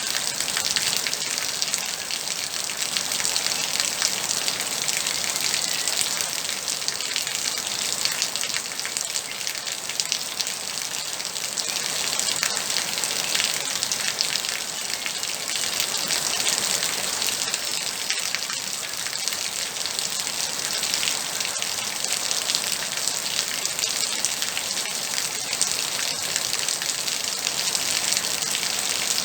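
Steady moderate rain falling, a continuous hiss with many fine drops pattering on a surface.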